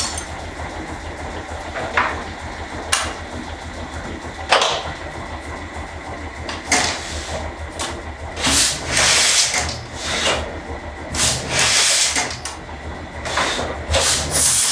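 Vintage Heidelberg platen letterpress running, printing its first sheets in colour: a steady low hum with sharp knocks from the mechanism during the first few seconds, then repeated bursts of hissing.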